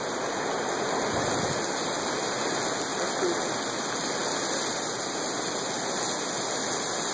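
Hail and heavy rain pelting the pavement in a thunderstorm: a dense, steady rush of countless small impacts.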